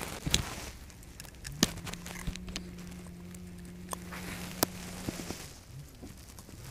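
Unhooking a pike with long-nosed pliers on grass: quiet rustling of hands, net and grass with a few sharp clicks of the pliers and handling. A steady low hum runs through the middle for about four seconds.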